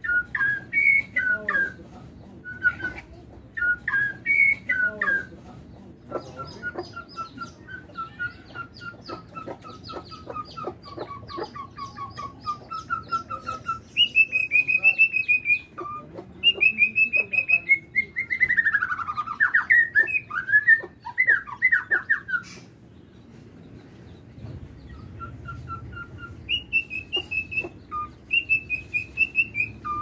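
A songbird singing a varied song of loud whistled phrases, rapid clicking trills and short chirps, with a run of quick down-slurred whistles about two-thirds of the way through and a quieter stretch after it.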